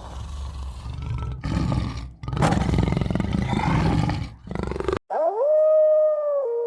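A lion roaring: a loud, rough, low sound with a short break about two seconds in, cut off after about five seconds. It gives way to a rising whine that settles into a steady tone.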